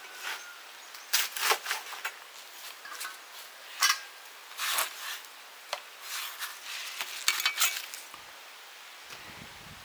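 Metal cookware and utensils clinking and clattering as they are handled, in irregular sharp clanks with a short ring. The loudest clanks come about a second in, near four seconds, and a quick cluster around seven and a half seconds.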